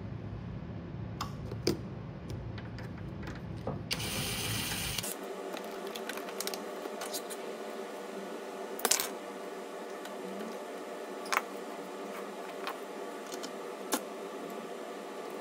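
Hand tools clicking and tapping against the metal ball-screw end fittings of a CNC router, a few sharp separate clicks. A low hum stops about five seconds in, just after a brief hiss.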